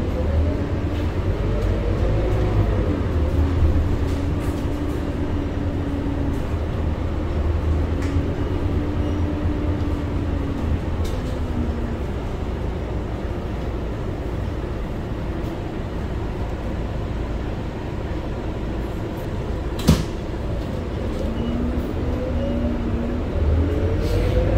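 Scania K230UB city bus heard from inside the cabin, creeping in traffic: a deep diesel rumble under a whine that rises in pitch as the bus pulls away in the first few seconds and again near the end, holding steady in between. One sharp knock about 20 seconds in.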